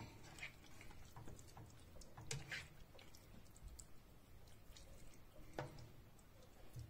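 Faint scrapes and clicks of a spatula stirring chicken and vegetables in a small non-stick frying pan, with a louder click about two seconds in and another after five seconds.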